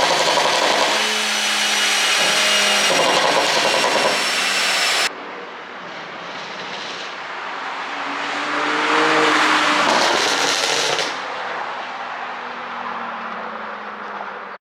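Porsche Panamera 4S twin-turbo V6 exhaust being revved, with popping and crackling on the overrun from a pop-and-crackle ECU tune. The sound changes abruptly about five seconds in, and a second rev rises and falls near the middle.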